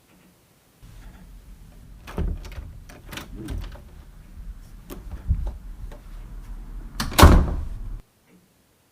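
A series of knocks and thumps over a low rumble, the loudest thump about seven seconds in, then it cuts off suddenly.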